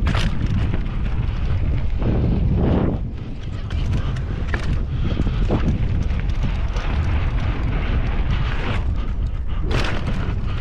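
Wind buffeting the microphone of a mountain bike being ridden on dirt trails, a steady low rumble with tyre and trail noise. A few sharp knocks from the bike come through, the clearest near the end.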